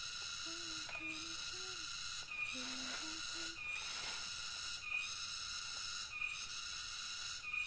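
Night insect chorus in a tropical forest: a steady high buzzing drone that drops out briefly about every second and a quarter.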